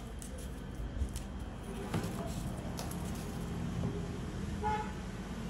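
Steady background road-traffic rumble with a brief vehicle horn toot about four and a half seconds in.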